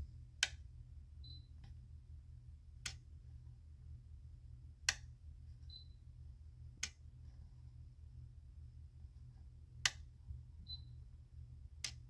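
Relay inside a plug-in air-conditioner thermostat controller clicking on and off as its dial is turned back and forth across the set point: six sharp clicks about two seconds apart, over a low steady hum.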